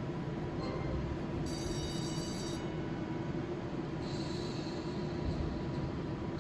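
Steady din of a casino slot floor, a constant hum and wash of machine noise, with brief high electronic chime tones from a video slot machine about a second and a half in and again around four seconds in, as its bonus round triggers.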